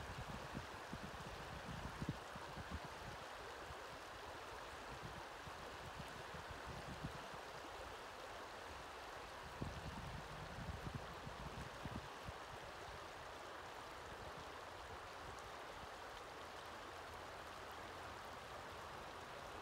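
Shallow river water rippling and burbling steadily over rounded cobbles in a riffle of the Gunnison River. A few brief low rumbles come through, about two seconds in and again around ten seconds.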